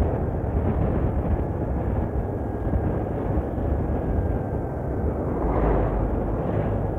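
Road and traffic noise from driving close behind a moving coach bus, heavily buffeted by wind on the microphone. A brief louder swell comes about five and a half seconds in.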